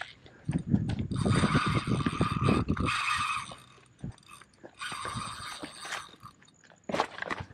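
Spinning reel buzzing during the fight with a hooked snook, in two stretches of a second and a half to two seconds, the first about a second in and the second past the middle. A rapid low clatter of scraping runs under the first stretch, and a few sharp clicks come near the end.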